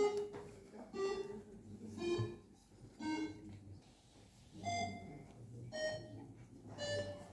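A slow tune of single short notes, about one a second, each at a different pitch, with no speech over it.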